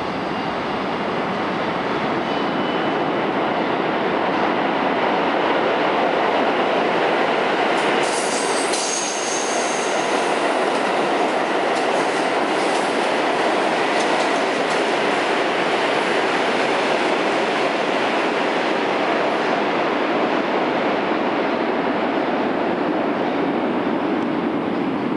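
R62 subway train running past at speed on the express track: a steady rumble of steel wheels on rail that builds over the first several seconds and then holds, with a brief high wheel squeal about nine seconds in.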